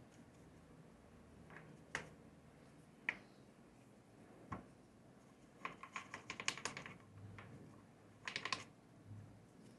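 Light, sharp clicks and taps of small hard objects being handled: a few single clicks, then two quick rattling runs of clicks, about six and eight and a half seconds in.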